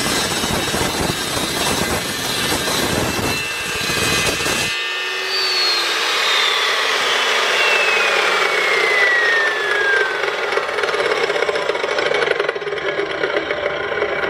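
Evolution S355MCS 14-inch mitering chop saw cutting through a 1/2-inch by 2-inch metal flat bar, which cuts easily. About five seconds in the cut ends abruptly, and the blade spins down with a slowly falling whine.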